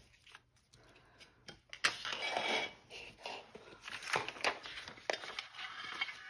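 Craft paper and a stencil being handled on a table: a sharp tap about two seconds in, then rustling and crinkling with a few more light taps.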